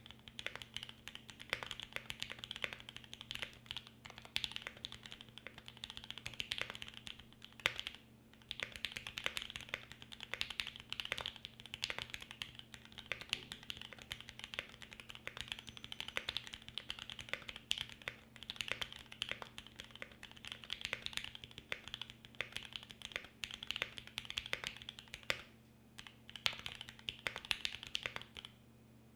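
Fast typing on a Mode 80 mechanical keyboard with an FR4 plate, lubed Gateron Black Ink linear switches and GMK keycaps: a steady stream of keystroke clacks with a few brief pauses, stopping shortly before the end.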